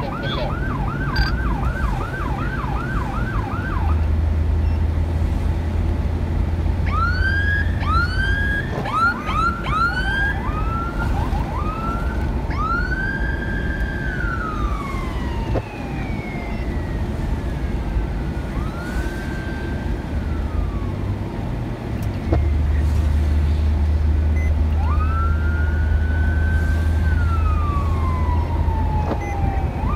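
Police siren heard from inside a moving vehicle, first in a fast yelp, then in short rising chirps, then in slow rising and falling wails. Steady engine and road drone runs underneath.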